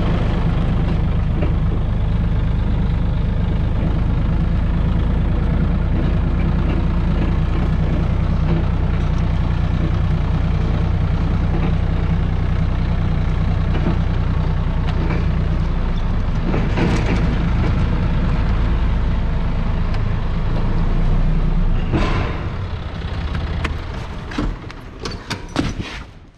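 Linde forklift's engine running steadily, heard from the driver's seat in the cab. In the last few seconds the engine sound fades away under a few clicks and knocks.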